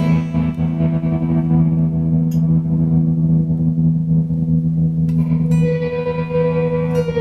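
Electric guitar played through a Montreal Assembly Rand() random tremolo pedal: a held chord whose volume wavers irregularly as the pedal's random modulation chops it, with new notes plucked about five seconds in.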